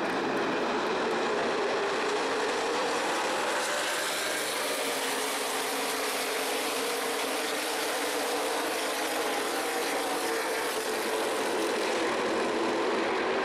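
The V8 engines of a pack of NASCAR Nationwide Series stock cars running around the speedway, heard as one steady, dense drone.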